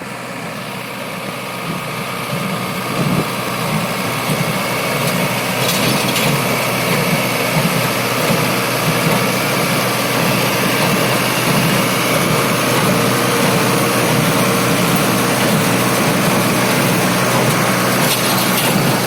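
Mahindra Arjun Novo tractor engine running steadily while driving a Massey Ferguson Agristar 1840 inline square baler baling paddy straw. It grows a little louder over the first few seconds, with a few brief knocks from the machinery.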